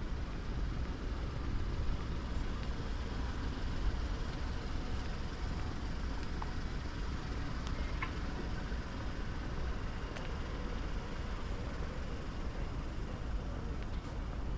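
Outdoor street ambience: a steady low rumble of the kind heard from traffic on nearby streets, with a few faint ticks and no single event standing out.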